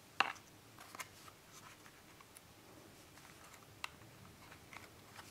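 Small clicks and taps of plastic and metal parts being handled as the chain brake handle is fitted onto a Husqvarna 55 chainsaw's chain guard. The sharpest click comes just after the start, with others about a second in and near four seconds, and fainter ticks between.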